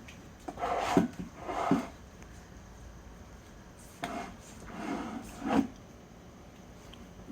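An object being pushed along the floor in short scraping slides, two pairs about three seconds apart, each slide ending with a knock.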